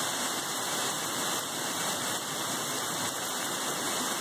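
Heavy summer-storm rain pouring down steadily, a dense, even rush of sound.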